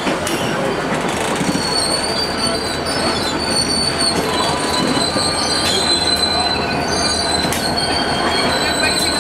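Stainless-steel passenger cars rolling slowly past with their wheels squealing in a thin, high, steady tone over a rolling rumble, with scattered clicks from the wheels on the rails.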